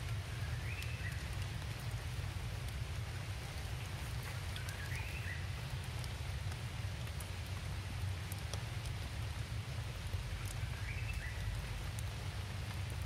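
Steady rainfall with the patter of individual drops over a low rumble. Three short, high rising calls sound through it, about a second, five seconds and eleven seconds in.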